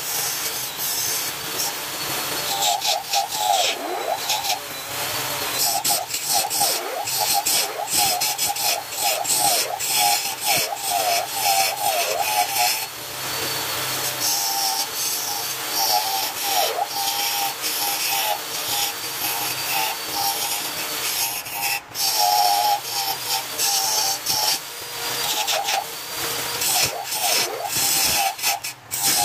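Hand-held turning tool cutting into a large wooden vase blank spinning on a lathe: a steady rough scraping of steel on wood, with a wavering whine that comes and goes and brief let-ups about 13 and 22 seconds in.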